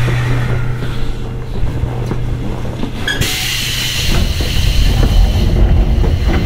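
Onboard sound inside a Sotetsu old 7000 series electric train car: a steady low hum with rail rumble. About three seconds in a sudden hiss starts and lasts about two seconds, and the low rumble grows louder near the end.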